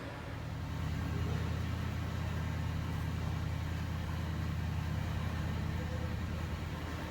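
Steady low engine drone that grows louder about a second in, then holds even.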